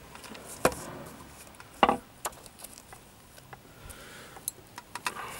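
Metal parts of an opened refrigeration compressor's motor end knocking and clicking as they are handled: a handful of sharp knocks, the loudest about two seconds in.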